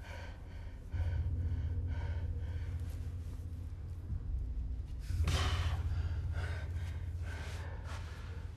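A person gasping for breath: short, quick breaths about two a second, then a louder, longer gasp about five seconds in, over a steady low rumble.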